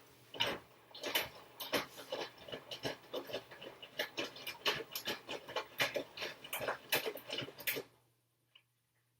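Washing machine drum turning during the first rinse, with an uneven run of knocks and sloshing clicks about three or four a second that stops abruptly near the end, leaving a faint hum.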